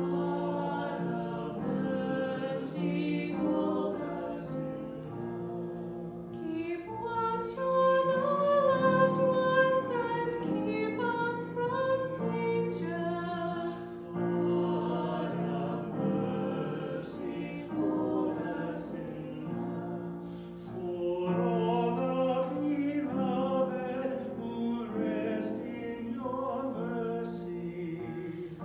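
A woman and a man singing liturgical music together, with steady held chords beneath the melody.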